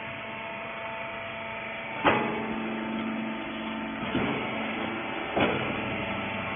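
Hydraulic rag baler running with a steady mechanical hum, with three short knocks about two, four and five and a half seconds in.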